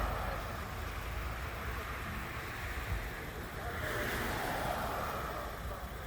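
Road traffic passing: a car's tyre noise dying away in the first second and another swelling up and passing about four seconds in, with wind buffeting the microphone.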